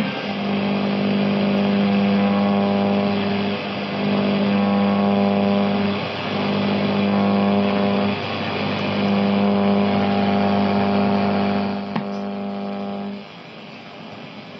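Shortwave reception on a National Ekco valve radio's loudspeaker: a steady droning tone over static hiss, broken briefly three times. About 13 s in the tone gives way to quieter hiss.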